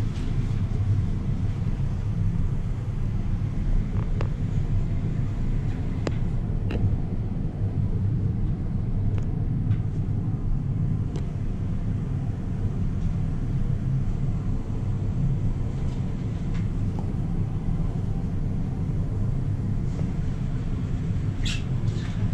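Inside a high-speed passenger elevator car as it climbs: the steady low rumble of the ride, with a few faint clicks.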